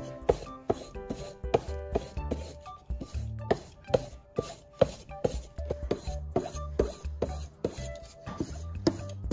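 A steel knife blade rubbing along a wooden strop block coated with green polishing compound, over background music with a steady beat.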